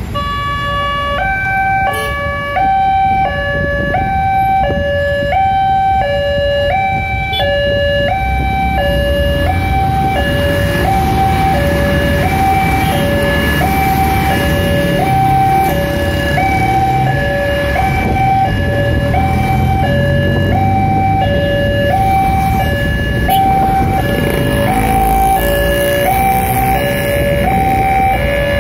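Railway level-crossing warning alarm sounding, an electronic signal alternating steadily between a high and a low pitch about once a second: the signal that a train is approaching and the barriers are lowering. Road traffic and motorcycles run underneath.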